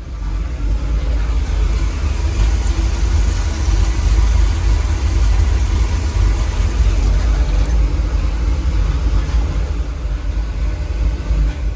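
A truck engine running, a loud, steady low rumble.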